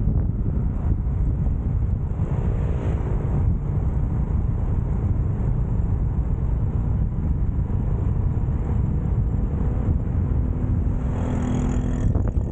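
Motorcycle riding at speed: low wind rumble buffeting the microphone over the steady note of the engine. A louder engine note comes in briefly near the end.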